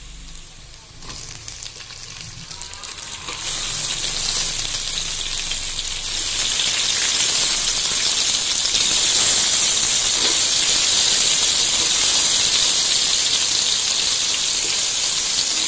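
Chopped tomatoes frying in hot oil with browned onions in a steel pot. A few light clicks, then loud sizzling from about three seconds in that grows louder and holds steady as the tomatoes hit the hot oil.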